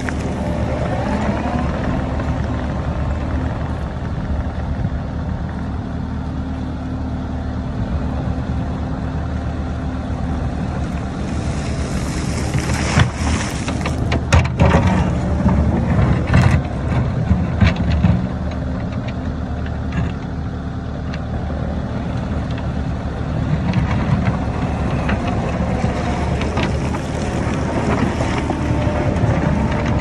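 Kubota SVL97-2 compact track loader's diesel engine running steadily under load as it pushes dirt and rock. About halfway through come several seconds of loud clanks and knocks as rock and the steel bucket strike each other.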